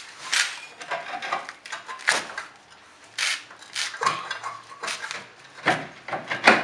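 Irregular metallic clinks and knocks of hand tools and bolts being picked up and handled, a few per second, with one sharp knock near the end.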